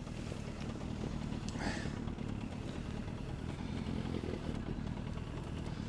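Small outboard motor idling steadily, a low even hum.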